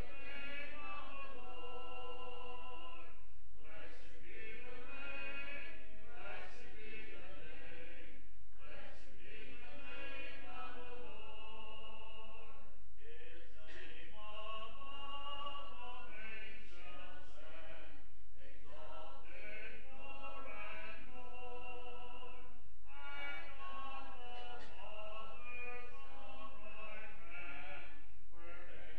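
Congregation singing a hymn a cappella, without instruments, in phrases separated by short breaks about every five seconds.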